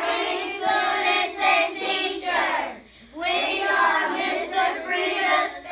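A group of young children singing together in unison: two sung phrases with a short breath-break about halfway through.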